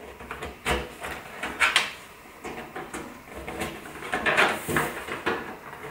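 Screwdriver knocking and scraping against the sheet-steel drawer of an IKEA Helmer cabinet as its tabs are bent over and its pins pushed in: a series of irregular knocks and rattles.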